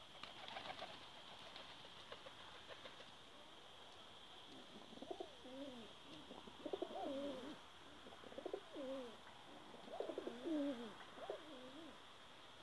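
Domestic pigeons cooing: a run of repeated low, rolling coos from about four seconds in, after a few soft ticks.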